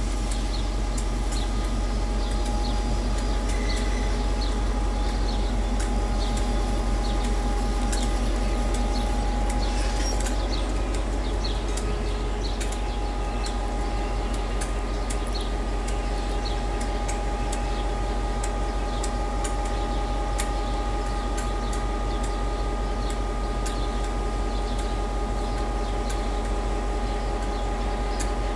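Ballast cleaner work train working slowly along the track, its machinery giving a steady drone with a held whine and many small irregular clicks.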